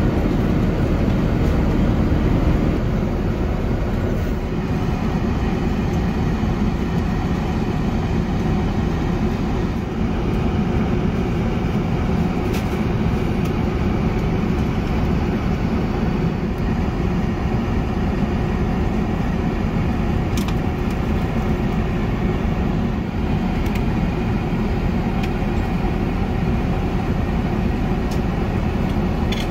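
Steady cabin noise inside an Airbus A380 in flight: the even rush of engines and airflow, with a few faint clicks.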